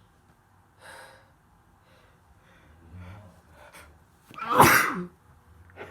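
A woman sneezes once, loudly, about four and a half seconds in, during a prolonged sneezing attack. A short, quiet breath comes about a second in.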